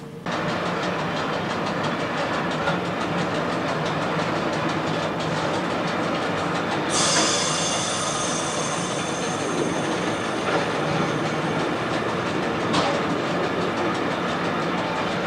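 SAR 'Bluebird' diesel railcar running on broad-gauge track, a steady rumble and clatter of wheels on rail. About seven seconds in, the wheels start a high steady squeal as the car takes a curve, fading over the next few seconds.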